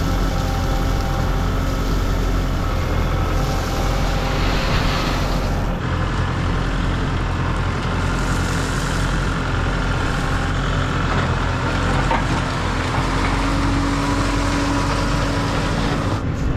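Kubota MX5400 tractor's four-cylinder diesel engine running steadily while the tractor drags a box blade through crushed gravel.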